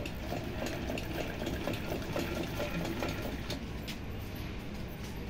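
Pico sewing machine's underside mechanism working, its shafts, links and rack gear giving a steady, rapid, irregular clatter of small metal clicks.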